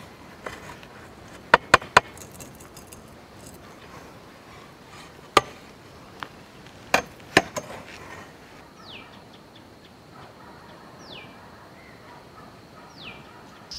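Big flat steel ladle clinking and scraping against a large metal biryani pot as the steamed (dum) mutton biryani is turned over and scooped. A few sharp metallic clinks come three in quick succession about a second and a half in, then scattered singly over the next several seconds.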